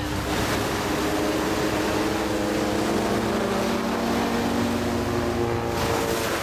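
Propeller aerobatic airplane engine droning overhead, its pitch slowly falling as it passes, over the wash of surf.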